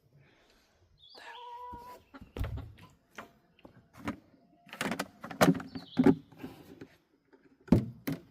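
Chickens calling: a held, squawking call about a second in and a shorter high one around five seconds. Scattered knocks and thumps from things being handled come between them.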